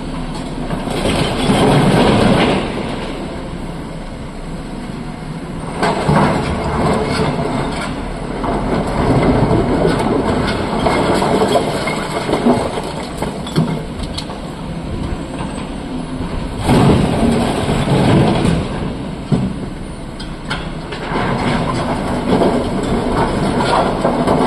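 Crawler excavator's diesel engine running and working its hydraulics, rising in several loud surges as it digs and swings. About a second in, broken rock clatters into a steel dump truck body.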